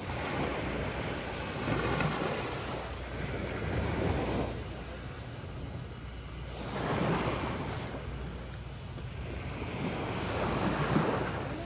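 Sea surf on a beach: waves break and wash in, the rushing sound swelling and falling back about four times.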